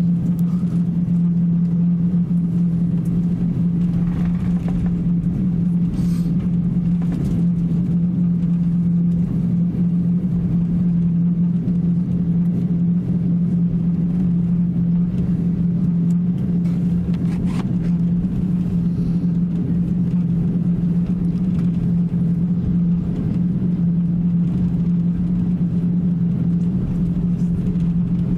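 Cabin noise of an Airbus A350-900 taxiing: the engines at taxi power and the air-conditioning give a steady low drone with a strong constant hum.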